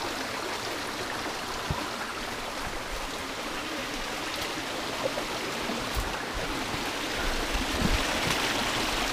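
Small mountain stream flowing steadily over rocks, a constant rush of water, with a few faint low knocks.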